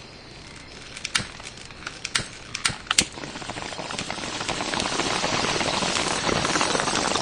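Wind buffeting the microphone of a camera riding along a bike lane, growing louder as the ride picks up speed. Four sharp clicks in the first three seconds.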